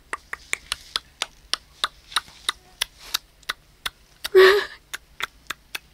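Sharp tongue clicks, about three a second, made to call a cat, with one short call about four seconds in.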